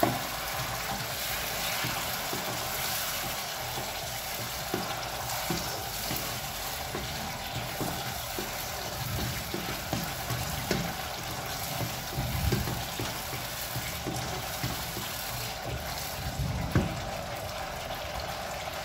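Curry paste frying in oil with a splash of water in a nonstick pan, sizzling steadily while a wooden spatula stirs it, scraping and tapping the pan now and then.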